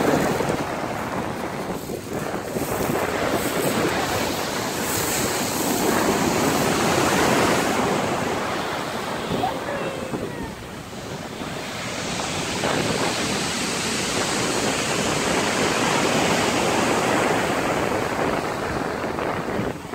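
Sea surf breaking and washing up over a pebble beach, a continuous rush that swells and eases off, dipping about two seconds in and again near the middle.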